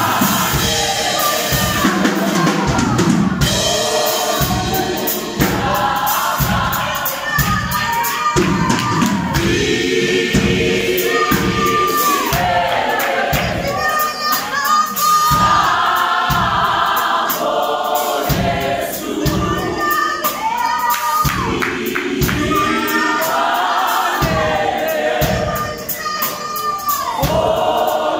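A group of singers performing a song together over drums that keep a steady beat.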